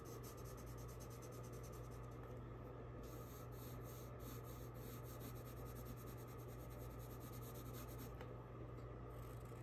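Colored pencil scratching faintly across paper in repeated shading strokes, over a low steady hum.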